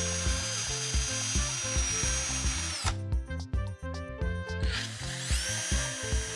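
Background electronic music with a steady low beat and stepped bass notes; the high part drops out about halfway through and sweeps back up a couple of seconds later.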